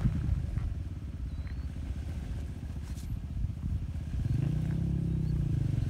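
Toyota 4Runner's engine running low and steady as it crawls up a rocky trail. The note grows louder and fuller about four seconds in, with a few light clicks.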